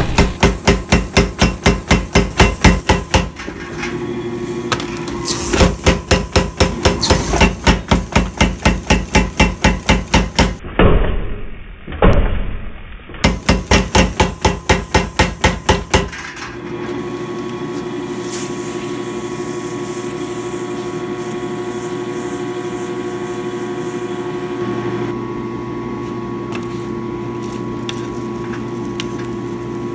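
Power hammer pounding a red-hot steel plate in fast runs of about five blows a second, in several bursts with short breaks. For roughly the last half it stops striking and its motor runs as a steady hum, with a few faint clicks.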